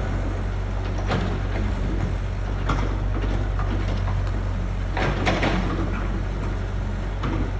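Excavator's diesel engine running steadily under load, with irregular knocks and scrapes from the bucket and soil, the loudest about five seconds in.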